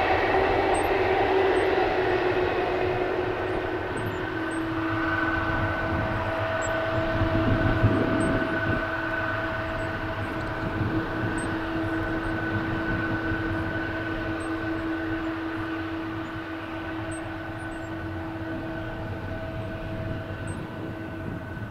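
Boeing 777-200's twin jet engines whining at low taxi power as the airliner taxis. The whine sinks slightly over the first few seconds, then holds steady over a low rumble, slowly getting fainter.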